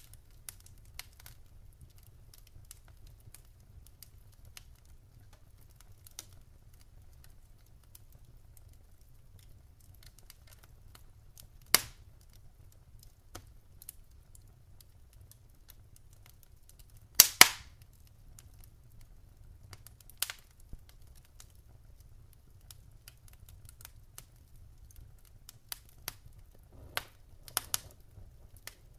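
A few isolated sharp snaps over a faint low hum: one about twelve seconds in, a loud double snap about seventeen seconds in, and smaller ones around twenty seconds and near the end.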